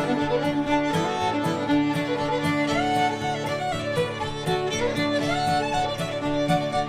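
Old-time fiddle music with a steady beat, the melody sliding between notes.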